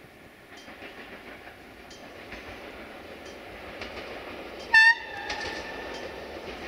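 Approaching VT 624 diesel multiple unit railcar: running noise growing louder, with wheels clicking over rail joints. About two-thirds of the way in it gives one short, loud horn blast that trails off into a quieter, slightly lower note for about a second.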